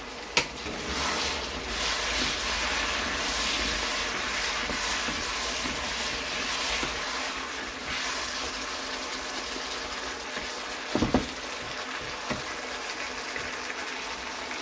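Meat and sliced onions sizzling steadily in a frying pan as they are stirred with wooden spatulas. There is a sharp click just after the start and a short knock about eleven seconds in.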